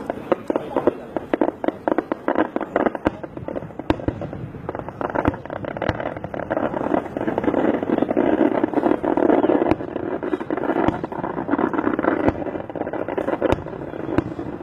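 A rapid string of firecracker pops crackling for about five seconds, then thinning to scattered pops under a louder, steady rushing noise.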